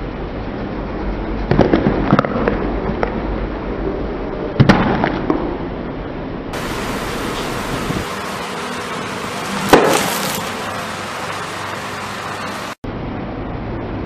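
Car tyre rolling onto raw carrots and crushing them: a run of crunchy snaps, then a single loud crack a little before the midpoint, over the low rumble of the slowly moving car. Later comes another loud crunching burst.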